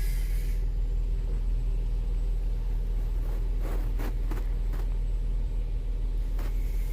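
A steady, low engine-like rumble with an even hum, with a few short clicks in the middle and one near the end.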